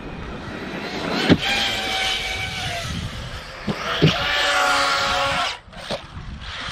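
Electric RC car's motor whining under throttle, its pitch climbing about four seconds in and then holding before it cuts off suddenly. Two sharp knocks, one a little over a second in and one about four seconds in.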